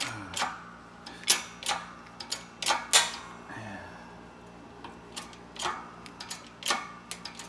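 Irregular sharp clicks and cracks from a motorcycle clutch hub assembly being forced in a hydraulic press as a pin is pressed out. The loudest snaps come about a second and three seconds in.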